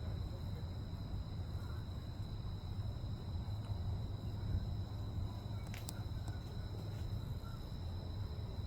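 Outdoor ambience: a steady high insect drone over a constant low rumble, with a few faint chirps and a single sharp click about six seconds in.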